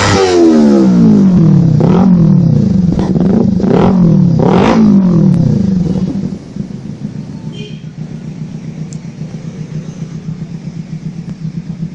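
Kawasaki Ninja 250 FI parallel-twin engine running through an aftermarket Akrapovic-style slip-on exhaust. The revs fall from high, the throttle is blipped three times, and the engine settles to a steady idle about halfway through.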